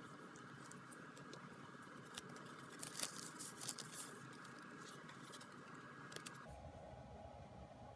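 Faint rustling and a few light clicks of packaging and cards being handled, over a steady background hum whose pitch shifts about six and a half seconds in.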